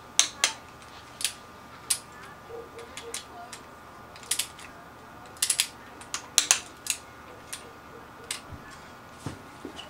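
Ratcheting click-type torque wrench being cranked on rocker-arm bolts of a GM 3800 V6 cylinder head: sharp metallic ratchet clicks, irregular, some single and some in quick clusters of two or three.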